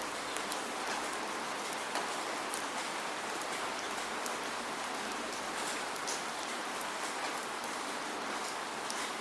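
Steady rain with no thunder: a continuous hiss of rainfall with many separate drops ticking on a surface.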